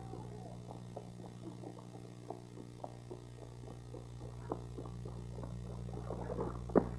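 Steady low electrical hum with faint, scattered clicks and taps.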